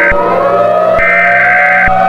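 Electronic emergency alert tones: a harsh buzzing beep switching on and off about once a second, over slowly gliding siren-like tones and a steady low drone.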